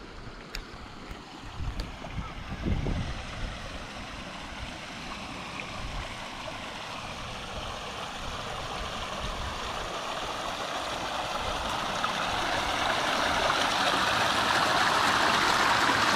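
Small creek trickling and splashing down over rocks, its steady rushing growing louder through the second half as it is approached. A few low bumps sound in the first seconds.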